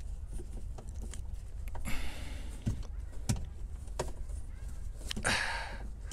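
Scattered plastic knocks and clicks with two short bouts of rustling and scraping: a gloved hand is working an LED bulb into the back of a headlight housing behind the plastic wheel-well liner. A low steady hum runs underneath.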